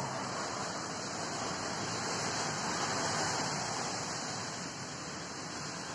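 Steady rain falling, an even hiss that swells a little in the middle.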